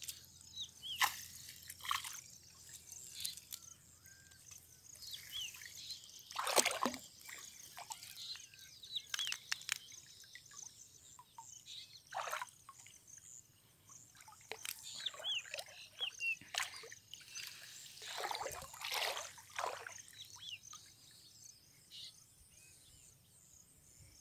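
Water splashing, sloshing and trickling in irregular bursts as a gill net is hauled up out of a lake by hand, water running off the mesh; the loudest splashes come about six seconds in and again near nineteen seconds.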